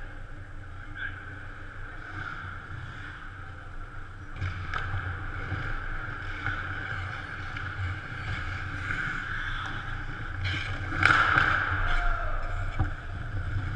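Hockey in an ice arena: skates scraping the ice and sharp clacks of sticks and puck over a steady hum, with a louder burst of noise near the end.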